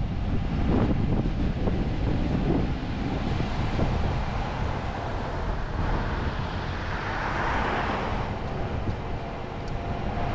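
Wind buffeting the camera microphone over the steady rumble of tyres and road noise from a car driving at low speed. About three-quarters of the way through, a swell of noise as an oncoming car passes.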